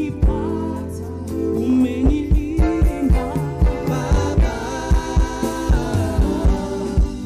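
Gospel song performed by a live church band and singers: sung vocals over keyboard and a steady kick-drum beat, about three beats a second.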